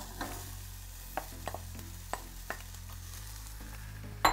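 Beans tipped into a small saucepan of frying onion and pepper: a low sizzle with several light taps of utensils against the pan, and a louder clatter near the end.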